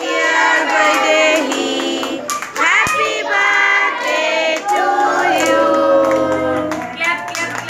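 A group of women and children singing a song together, with hands clapping along.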